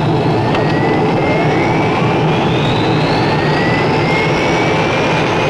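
Allison T56 turboprop engines of a C-130 Hercules running, a steady loud engine noise with high whines that rise slowly in pitch as the propellers speed up.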